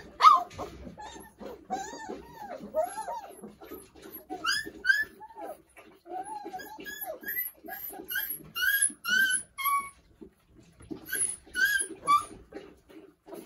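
Month-old Doberman puppies squealing and whining in many short, high, rising-and-falling cries that overlap one another. Under the cries runs a quick patter of eating noises as the litter feeds at the dish. The cries thin out briefly about ten seconds in.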